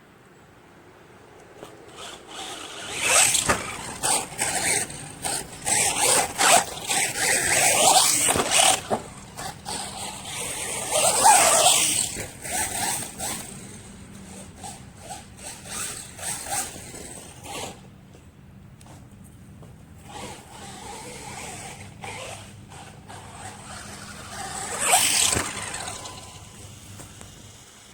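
Electric RC monster truck on a 3S battery driving in bursts: the motor whine rises and falls with the throttle over the tyres scrabbling on dirt. It is loudest a few seconds in through about thirteen seconds in, with a quieter stretch and another loud burst near the end.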